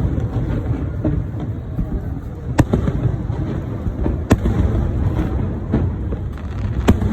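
Aerial fireworks going off: three sharp bangs a second or two apart over a continuous low rumble.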